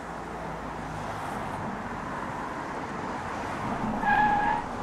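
Car driving by: steady engine and road noise. About four seconds in, a short steady beep is heard, the loudest sound here.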